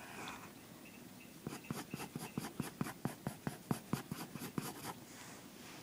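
Wooden pencil scratching on paper in a run of quick short strokes, about six a second, starting after about a second and a half and stopping near the end.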